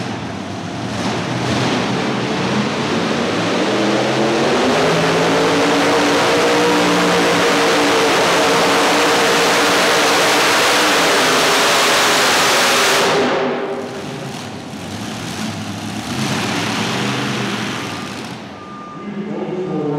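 A multi-engine supercharged modified pulling tractor at full throttle under load, its engines' pitch bending up and down as it pulls. It is loud for about nine seconds, then cuts off abruptly about thirteen seconds in, and the run ends with an engine fire.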